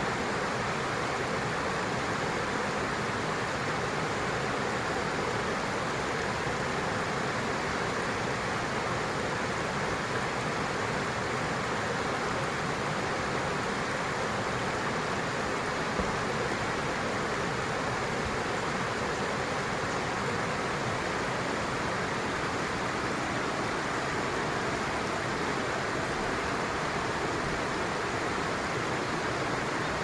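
Shallow stream running over stones: a steady, even sound of flowing water.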